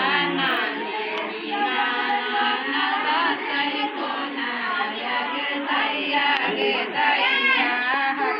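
A group of women singing a devotional chant together, many voices overlapping.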